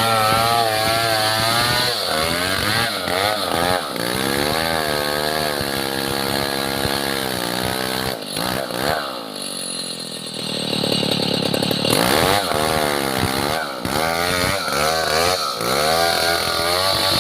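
Petrol engine of a wood-cutting saw running under load, its pitch wavering up and down as the blade works through timber. About nine seconds in the engine slows and stays low for a couple of seconds, then revs back up.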